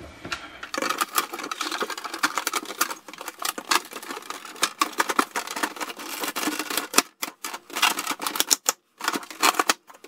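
Plastic clicking and rattling as a refrigerator's freezer evaporator cover panel, with the fan on it, is handled and pressed into its slots: a dense run of short clicks with brief pauses about seven and nine seconds in.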